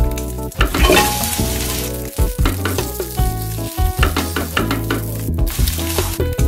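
Garlic, red onion and chopped red pepper sizzling in hot oil in a frying pan, stirred with a spatula, with short clicks as the pieces are moved and added. Music plays underneath.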